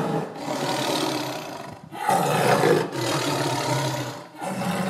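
Tiger roaring: long roars one after another, with short breaks between them.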